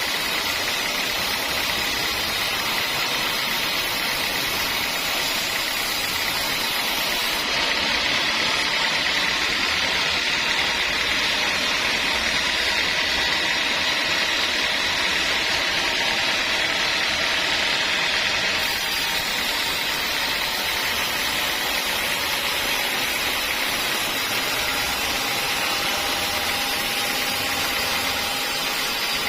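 Sawmill saw running in a steady, loud machine noise with a high whine near the top, a little louder from about 8 to 18 seconds in.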